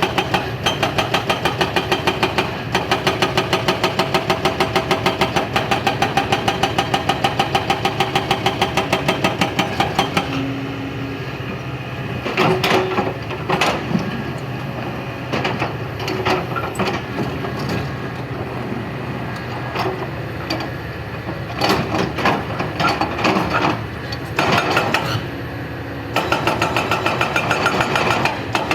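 Heavy diesel machinery engine running with an even, rapid pulse. From about ten seconds in, the pulse gives way to a lower, uneven rumble broken by irregular clanks and knocks. Near the end the steady pulsing engine returns.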